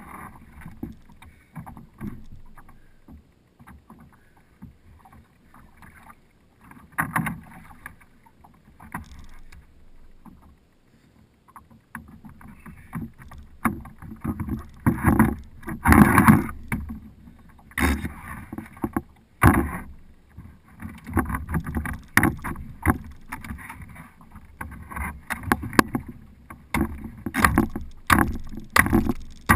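Irregular knocks, thumps and scrapes against a plastic fishing kayak's hull as a freshly landed wahoo and gear are handled on deck. The first dozen seconds are sparse and quiet, then the knocking comes thick and fast, the loudest thump about sixteen seconds in.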